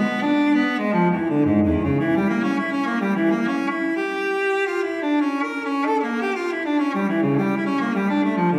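Background music: a solo cello playing bowed notes one after another.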